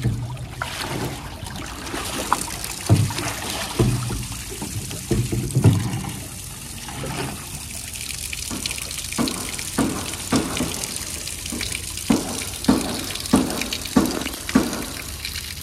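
A stream of water pouring into a metal tub, with a lion pawing at the water and splashing. The splashes come as repeated short slaps, a few scattered ones at first, then about one every half second through the second half.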